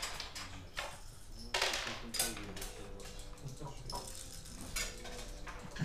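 Scattered light clacks and clatter of hard objects, the loudest about one and a half to two seconds in, over steady room noise.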